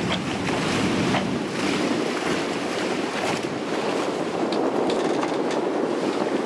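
Steady rush of wind and water around a sailing catamaran under way in 15 to 20 knot winds, with a few faint knocks.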